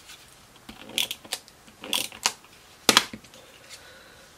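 Glue dot roller dispenser pressed onto paper embellishments to lay glue dots: a run of about six short, sharp plastic clicks and taps, the loudest pair about three seconds in.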